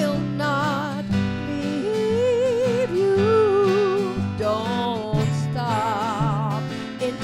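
Live acoustic gospel song: women's voices singing held notes with vibrato, sometimes two in harmony, over strummed acoustic guitar and sustained low cello notes.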